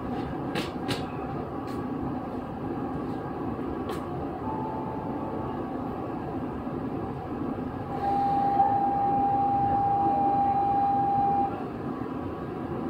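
Chiba New Town Railway 9100 series WN-drive electric train running at speed, heard from inside the car, with a few sharp clicks early on. About eight seconds in, a steady high-pitched tone rises over the running noise, holds for about three and a half seconds, then stops.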